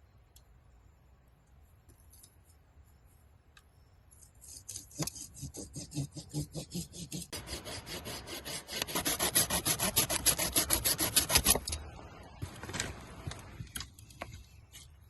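Rapid, evenly repeated scraping strokes, about three a second, starting about four seconds in, growing louder midway and stopping suddenly; a few faint scrapes follow.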